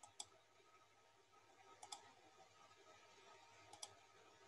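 Faint computer mouse clicks in near silence: one click just after the start, then two quick double clicks about two seconds apart.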